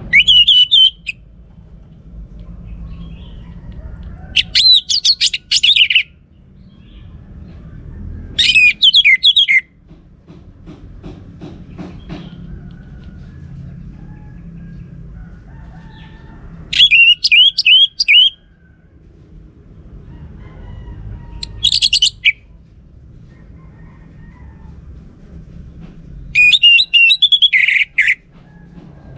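Orange-headed thrush singing loud, warbled high-pitched phrases of about one to two seconds each, six of them with pauses of several seconds between.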